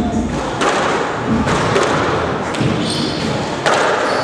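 Squash ball being struck back and forth in a warm-up drill: racket hits and ball hitting the walls, sharp thuds about once a second, echoing around the court.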